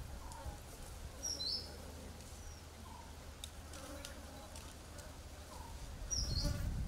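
Faint woodland ambience with birds chirping: a short high chirp about a second in and another near the end, over a low rumble that swells near the end.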